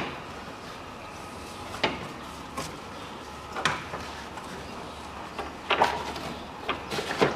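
Hands working a car radiator loose: a scattering of short knocks and clacks of plastic and metal parts, about six in all, closer together in the second half.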